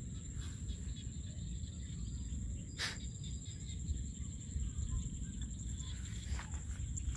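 Open rice-field ambience: a low, buffeting wind rumble on the microphone under a steady, thin, high insect drone, with one sharp click a little under three seconds in.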